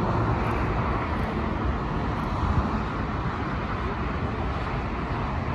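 Steady, even rush of distant airliner jet engines across the airfield, with low rumble from wind on the microphone.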